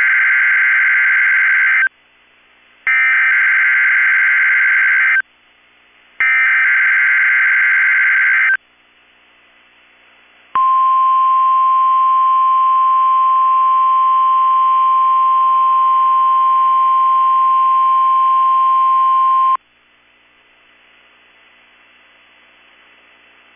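NOAA Weather Radio Required Weekly Test: three buzzy bursts of SAME digital header data, each about two seconds long with a short pause between, then the 1050 Hz weather radio warning alarm tone held steady for about nine seconds. Faint hiss fills the gaps.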